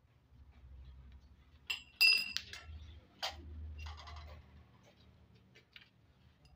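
Short drilled metal pipe being handled: a sharp metallic clink with a brief ring about two seconds in, then lighter knocks and rustling handling sounds.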